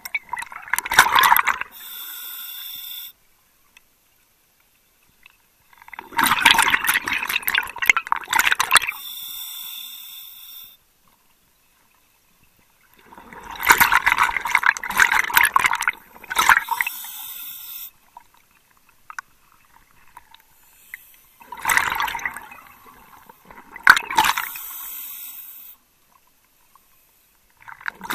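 Scuba diver breathing through a regulator in a slow repeating cycle, about four breaths, one every seven seconds or so. Each breath is a burst of bubbling exhaust bubbles and a shorter steady hiss of the demand valve on the inhale, with brief quiet pauses between.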